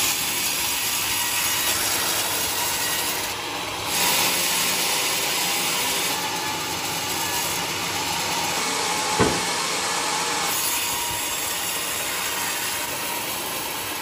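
A homemade band sawmill's blade cuts through a teak log with a steady hissing saw noise. There is one brief sharp knock about nine seconds in.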